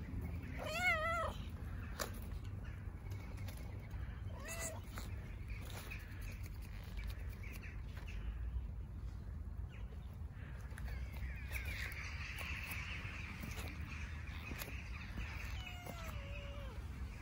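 Stray tabby cat meowing three times: a wavering meow about a second in, the loudest, a short meow about four and a half seconds in, and a falling meow near the end. A steady low rumble runs underneath.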